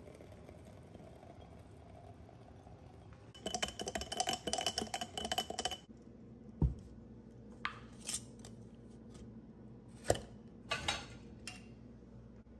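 Kitchen clatter: about two seconds of rapid clinking, like a utensil working against a dish, then a few separate knocks and clinks.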